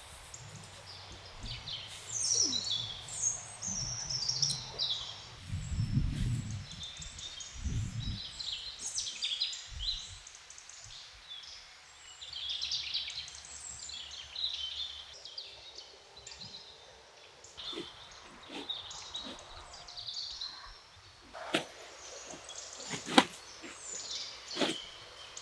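Birds singing, a steady run of chirps and warbles. Two low thuds come about six and eight seconds in, and several sharp knocks near the end.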